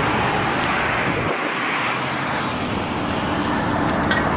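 Steady road traffic noise.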